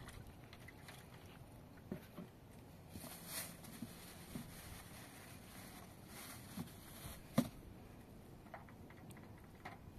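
Quiet handling sounds from a plastic jerrycan and a small plastic bowl: scattered light clicks and knocks with a couple of brief soft rushes, and one sharper knock about seven seconds in.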